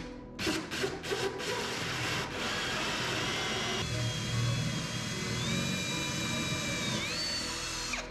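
Cordless drill boring a hole through a countertop with a spade bit. A few short knocks and bursts come first, then a steady run with a high whine that steps up in pitch twice in the second half and stops at the very end.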